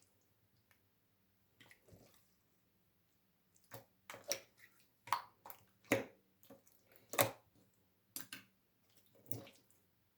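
Slime being squeezed and poked by hand: a string of short wet pops and squelches, mostly bunched together in the second half.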